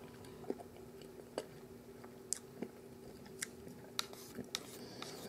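Faint, scattered clicks of a plastic fork against a plastic microwave-meal tray, with quiet chewing of a mouthful of cheesy potato, over a faint steady hum.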